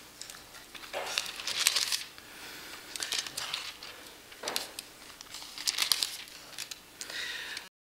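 Sheets of paper rustling and being shuffled at a lectern, picked up close by the microphone, in several short crinkling bursts; the sound cuts off abruptly near the end.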